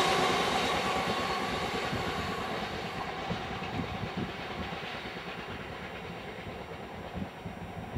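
Bogie oil tank wagons of a freight train rolling away along the track, the wheel-on-rail noise fading steadily as the tail of the train recedes.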